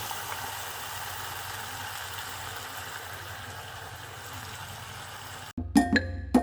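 Eggplant frying in an oiled pan over a fire, a steady sizzle. Music with struck, marimba-like notes comes in near the end.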